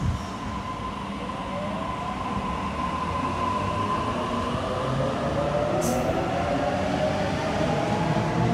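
Sydney Trains double-deck electric train pulling away from the platform. Its traction motors whine in several tones that rise in pitch as it gathers speed, over a growing rumble of wheels on rail.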